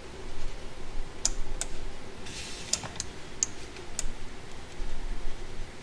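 A handful of separate, irregular computer key clicks with a faint steady hum beneath.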